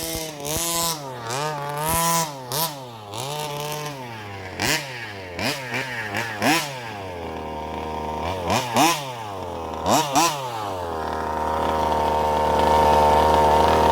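Small two-stroke petrol engine of a 1/5-scale RC car, revved in quick repeated blips. From about two-thirds of the way in it holds a steady high speed and grows louder.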